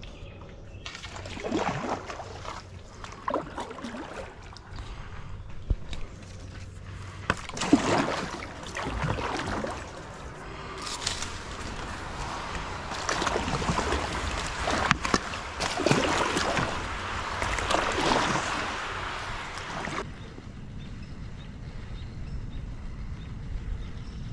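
Kayak paddle strokes splashing and sloshing through the water, repeated irregularly every second or two over a steady low rumble, stopping near the end.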